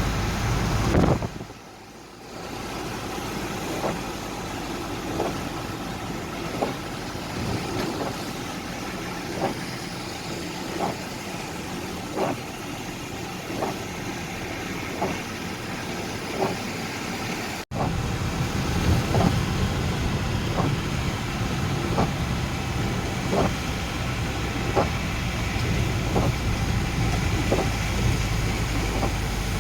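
A motor vehicle running in the rain, with windscreen wipers giving a short regular stroke about every second and a half. Near two-thirds of the way through, a sudden cut brings in a louder engine rumble while the strokes keep going.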